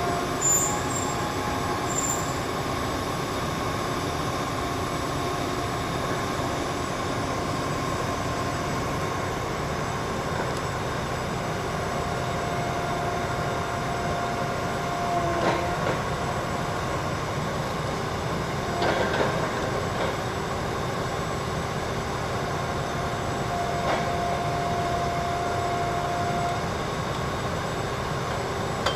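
Truck-mounted water well drilling rig running steadily. A higher whine comes in twice for a few seconds, and there are a few short metal knocks.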